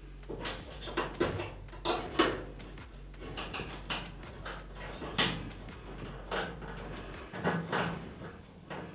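Irregular clicks and knocks of metal parts being handled as the cord's wire terminals and screws are fitted onto a dryer's terminal block. A steady low hum underneath stops about seven seconds in.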